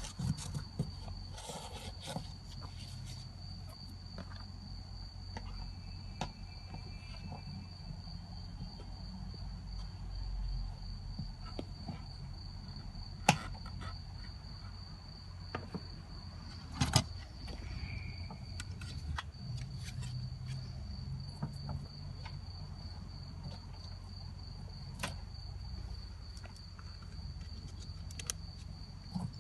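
A steady high-pitched trill or whine over a low hum, with a few sharp clicks and knocks, the loudest about thirteen and seventeen seconds in.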